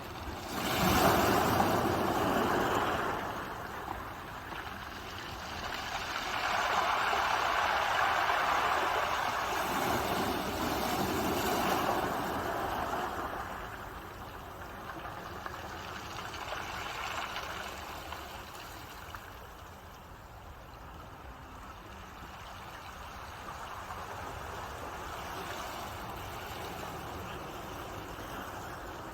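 Ocean waves breaking and washing up a shore in slow surges. Two large breaks come about a second in and from about six to twelve seconds, then smaller, softer swells follow.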